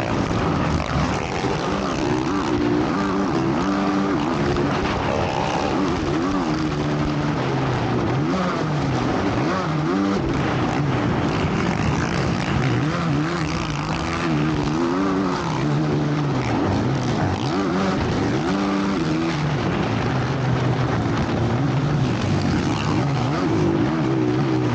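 Motocross bike engines revving, the pitch sweeping up and down again and again over a steady drone.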